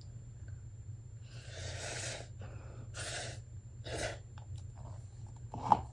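A woman breathing hard through her mouth from the burn of ghost pepper noodles: three sharp, airy breaths, the first the longest, then a few small mouth clicks and one short sharp sound near the end.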